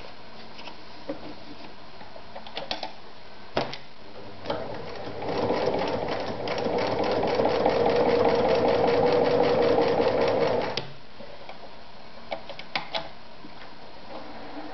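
Singer Starlet 354 electric sewing machine stitching a felt insole. After a few light clicks of handling, it starts about five seconds in, speeds up into a rapid, even needle clatter, and stops abruptly about six seconds later. A few more light clicks follow near the end.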